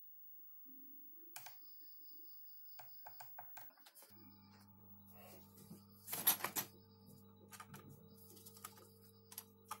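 A PC's fans spin up for about a second and stop with a click as the power cuts out, the sign of a short in the HD7970 graphics card, followed by a few sharp clicks. About four seconds in, a steady electrical hum starts, with clicks and one loud clatter a little after six seconds as the bare card is handled on the workbench.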